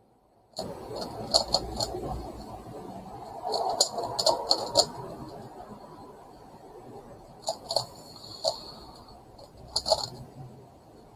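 Megaminx puzzle being turned fast by hand: quick runs of plastic clicking and clacking as its faces are twisted, coming in four spurts with short pauses between.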